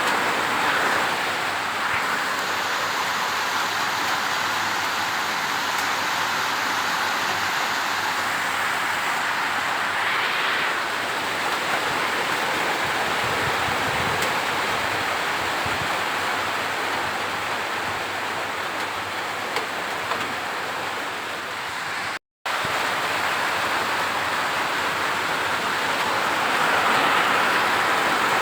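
Steady rain falling outside a window, an even hiss with no break in its flow. About three-quarters of the way through it cuts out to silence for a split second, then resumes.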